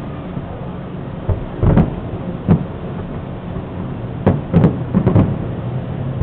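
Aerial fireworks shells bursting in a series of low booms: three spaced bangs in the first half, then a quick cluster of four about a second apart or less near the end.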